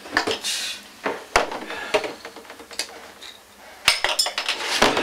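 Clinking and clattering of hard objects, with a sharp knock about a second and a half in and a cluster of clinks near the end.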